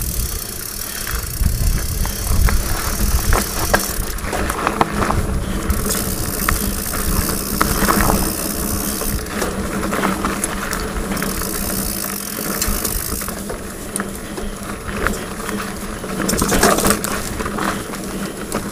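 A Diamondback Mason Pro hardtail mountain bike rolling over a dirt singletrack: the knobby tyres crunch over dirt and loose stones, and the bike rattles and knocks over bumps. In stretches of a few seconds the rear hub's freewheel buzzes as the rider coasts.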